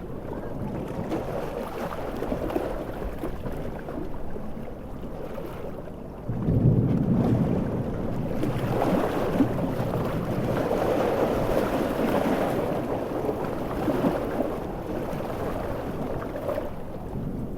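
Coastal storm ambience of heavy surf, wind and rain, a steady rushing noise. About six seconds in a sudden deep surge comes in, and the noise stays louder for several seconds before it eases.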